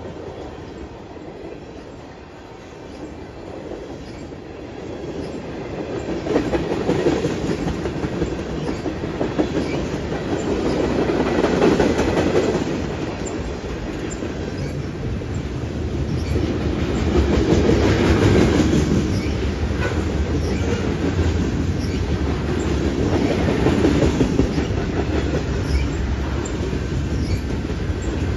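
Freight cars of a passing train (tank cars, boxcars and covered hoppers) rolling by close at hand. Their wheels clatter over the rail joints above a continuous low rumble, and the sound swells louder and eases off every few seconds.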